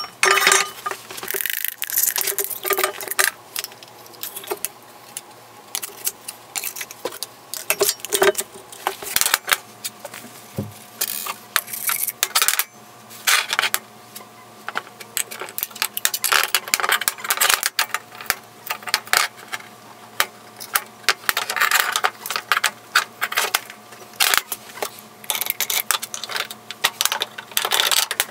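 Steel bolts, nuts and washers clinking and rattling as they are handled and fitted into painted steel power-hammer parts on a steel workbench: many short metallic knocks and clicks, irregular and closely spaced.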